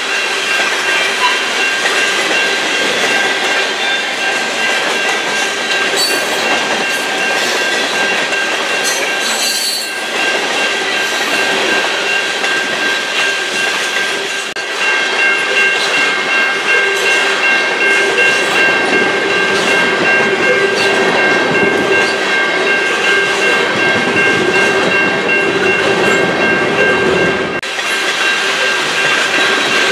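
Freight train cars, mostly loaded tank cars, rolling past close by: a steady clatter of steel wheels on the rails with a high, thin ringing squeal from the wheels that grows stronger about halfway through.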